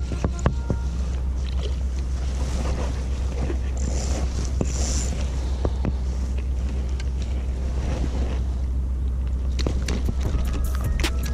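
Wind rumbling on the microphone over water, with scattered light clicks and knocks from handling.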